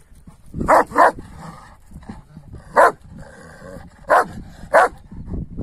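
Large Kangal shepherd dog barking five times: a quick pair, then a single bark, then another pair. These are warning barks at another female dog during a tense meeting, after she has begun growling.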